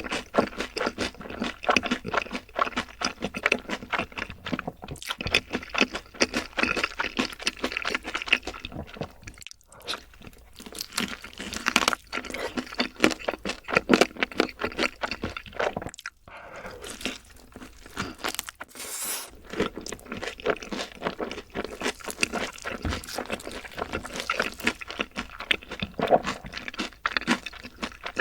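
Close-miked crunching and chewing of crispy fried chicken: dense, irregular crackles of a crisp coating being bitten and chewed, with short pauses about a third and about two thirds of the way in.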